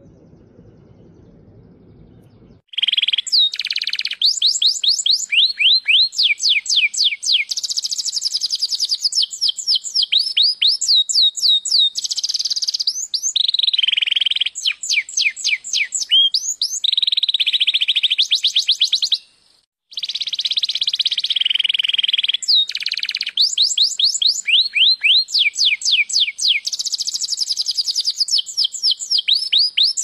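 Domestic canary singing: long runs of rapid repeated notes and quick falling sweeps, rolling into trills. The song starts a few seconds in, after a faint low hum, and breaks off briefly about two-thirds of the way through before resuming.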